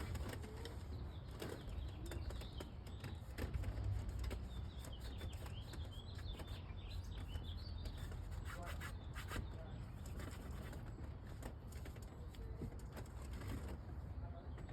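Birds chirping over a steady low rumble, with scattered light clicks and knocks.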